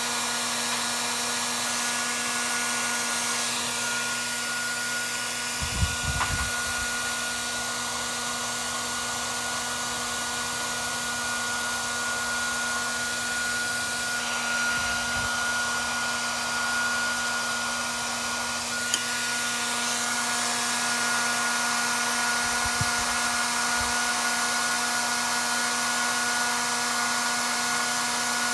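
A small electric motor runs steadily with a constant whine over a hiss, and a few soft knocks come through about six, fifteen and twenty-three seconds in.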